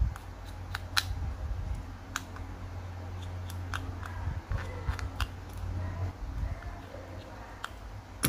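Small repair tools clicking and tapping against an iPhone 4S's internal parts, in scattered sharp ticks over a steady low hum.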